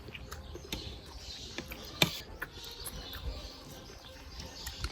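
Crunching and chewing of extra-crispy lechon kawali (deep-fried pork belly) in a lettuce wrap: scattered crisp crackles, with one sharper crunch about two seconds in.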